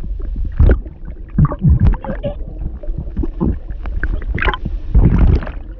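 Drowning sounds acted underwater: muffled, strangled vocal sounds and bursts of bubbling gurgles coming in irregular surges, the largest near the end.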